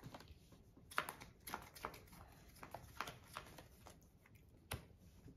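Trading cards being shuffled and handled by hand: a run of soft, irregular clicks and flicks, the sharpest about a second in.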